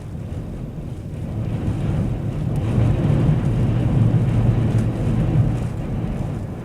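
Storm wind gusting hard against the microphone: a deep, low rush that builds over about three seconds, holds at its loudest, then eases off near the end.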